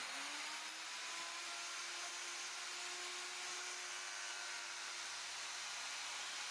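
Electric plunge router running at full speed with a steady high whine as it bores holes into a wooden plank. Its motor is still spinning up at the very start and settles within the first half second.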